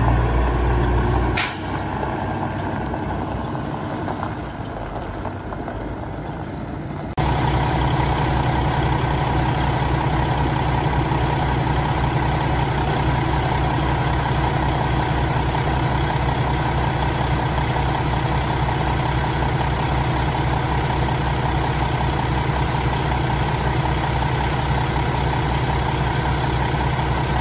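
A Kenworth T680's PACCAR 455 hp diesel engine runs as the truck moves, then goes quieter with a sharp air-brake hiss about a second in as the truck stops. From about seven seconds in, the engine idles steadily, heard up close at the open engine bay.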